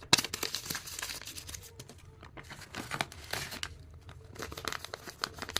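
A blind bag's wrapper being torn open and crinkled by hand: a sharp rip just after the start, then bouts of crinkling.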